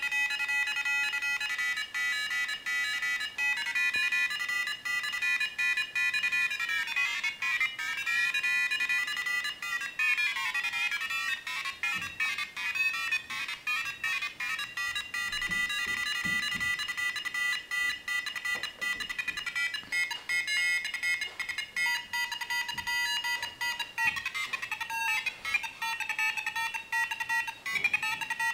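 Homemade Teagueduino light-sensing theremin drum synth playing through two piezo disc speakers: a rapid stream of short, high 8-bit beeps whose pitch glides up and down as a hand passes over the light sensor.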